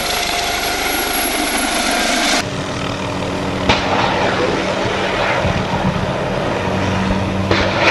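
Military helicopter's turbine engine and rotors running steadily. A high whine cuts off about two and a half seconds in, giving way to a lower steady drone.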